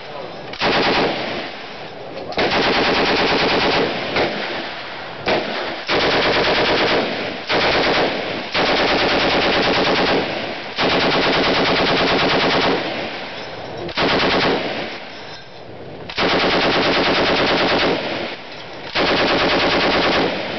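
M60 machine gun firing 7.62 mm rounds in about ten bursts of automatic fire, each from under a second to about two seconds long, with short pauses between them.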